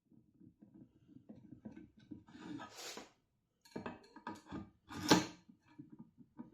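Hard objects, likely metal parts or tools, being handled with irregular clinking and clattering, and one loud sharp clank about five seconds in.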